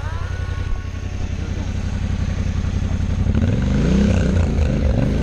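Adventure motorcycle engines running at idle; from about three seconds in, one is revved up and down several times.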